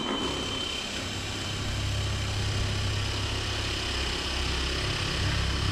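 An engine running steadily with a low hum that grows stronger about a second and a half in.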